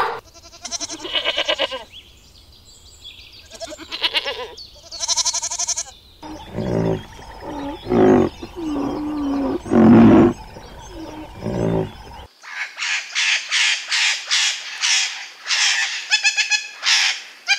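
A run of animal calls: elephant calls in the first six seconds, deeper repeated calls from about six to twelve seconds in, then scarlet macaws squawking over and over in the last five seconds.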